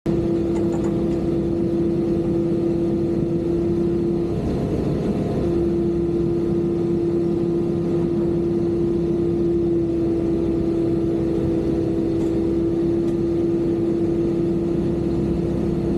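Construction machine engine running steadily under load, with a strong constant whine that breaks off for about a second around four to five seconds in.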